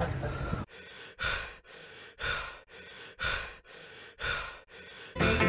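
Heavy breathing in and out, about one breath a second, alternating a quieter and a louder breathy rush four times. Music comes in right at the end.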